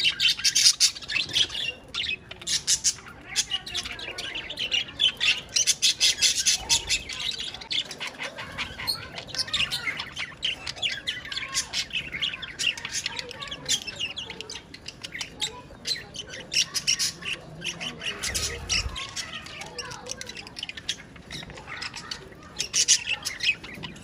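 A flock of budgerigars chattering: fast runs of high, scratchy chirps and warbles in bouts that come and go.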